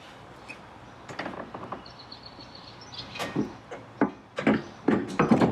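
Metal clunks and scrapes of a steel chassis brace being handled and slid into place: a few light knocks at first, then a cluster of louder knocks over the last couple of seconds.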